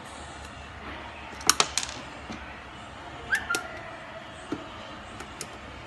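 Small metal clicks and clinks of hand tools and wire connectors being handled on a workbench. There is a quick cluster of three clicks about a second and a half in, one clink with a brief ring a little past three seconds, then a few lighter ticks.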